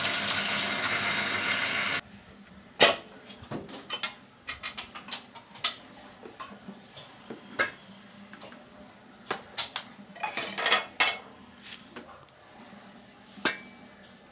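Steel parts clinking and knocking against each other and a bench screw press as a scooter pulley assembly is handled, in scattered sharp strikes. It starts after about two seconds of steady loud machine noise that cuts off abruptly.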